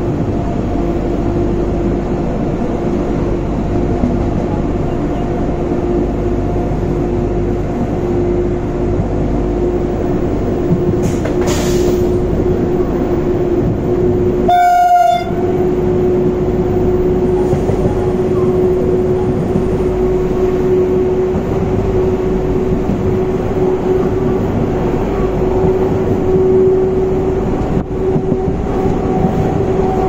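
Moving train heard from on board: a steady loud rumble of the running carriage with a constant droning hum. About halfway through, the rumble drops out briefly under a short pitched tone.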